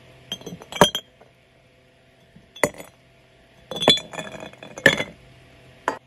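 Hard objects clinking together in about five separate bursts: a quick cluster about a second in, then single or grouped clinks every second or two, with a short ring after each.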